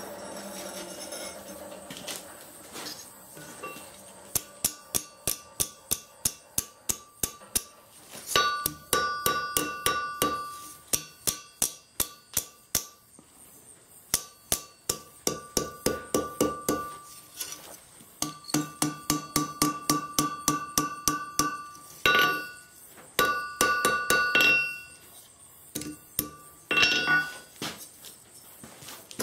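Hand hammer striking red-hot file steel on an anvil while forging a flint striker's curled end: runs of quick blows, about three a second, each with a clear metallic ring from the anvil, broken by short pauses.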